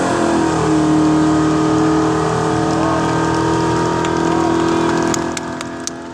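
A 1970 Chevy's 406 V8 held at steady high revs during a burnout, its rear tyres spinning and smoking. About five seconds in the engine drops back and gets quieter, with a run of sharp ticks near the end.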